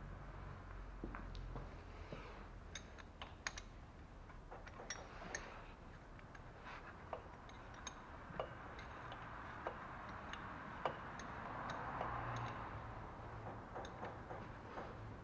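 Scattered light clicks and taps of parts and tools being handled by gloved hands in the engine's timing-belt area, irregular and spread throughout, over a faint steady low hum.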